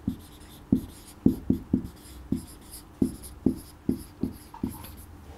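Marker pen writing on a whiteboard: a run of short strokes and taps, several a second, as words are written out.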